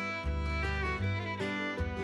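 Instrumental background music: a melody on string instruments over a low bass line, with notes changing several times a second and a few short pitch slides.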